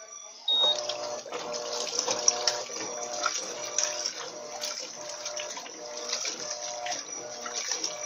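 Electrolux LT13B top-load washing machine starting its agitation about half a second in: water churning and splashing against the tub, with the motor humming in short, repeating spells as the agitator swings back and forth.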